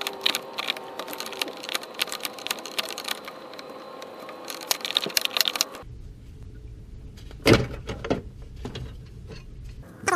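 Clicking and rattling of parts and tools being handled in the engine bay, then an abrupt change to a low hum with a few separate knocks.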